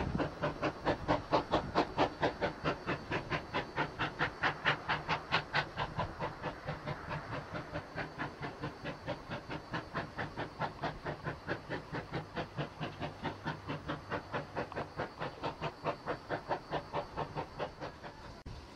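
Steam exhaust beats of the 0-6-0 saddle tank locomotive No. 813, an even chuffing of about four beats a second that slowly fades as the engine draws away, cutting off suddenly near the end.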